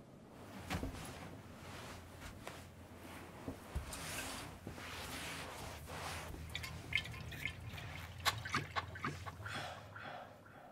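A man drinking from a glass bottle: liquid sloshing and gulping, with short sharp clicks of glass bunched in the second half, over a low steady hum.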